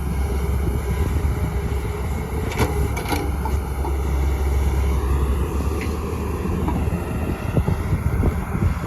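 Heavy diesel vehicle engines running with a steady low rumble, with a few sharp knocks about two and a half to three seconds in.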